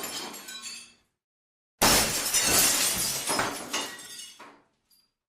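Glass shattering, as a sound effect. The tail of one break tinkles away in the first second. After a short silence, another sheet of glass smashes suddenly and the pieces clatter and tinkle for about three seconds, fading out, with one last small clink near the end.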